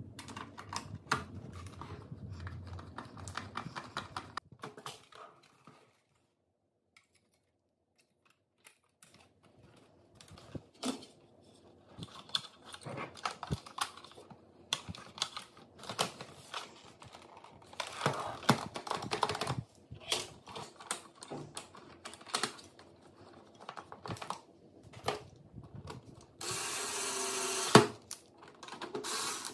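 Plastic parts of a Roborock robot vacuum being handled and worked with screwdrivers: scattered clicks, taps and rattles, with a pause of a few seconds. Near the end a Bosch cordless screwdriver runs twice, each run about a second and a half long, with a sharp click between the runs.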